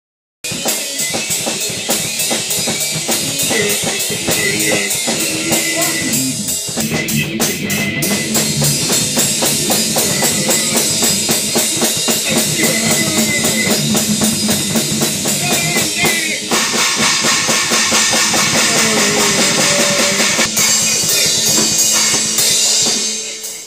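Rock music on drum kit and guitar: a steady, fast beat with bass drum under it, starting abruptly and stopping shortly before the end.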